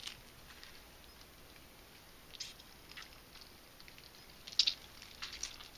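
Faint, scattered wet clicks and scrapes of a metal fork and hands working a pufferfish on a plastic cutting board, pulling the skin and innards away from the flesh. The sharpest clicks come a little past halfway.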